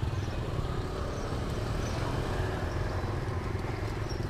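Steady motorbike and road traffic running through a busy outdoor market, a continuous low engine rumble with faint crowd noise behind it.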